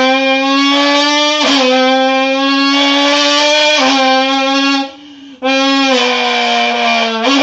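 A person imitating a sports car engine with the voice: a buzzing tone held on one pitch, with a few brief jumps in pitch and one short break about five seconds in.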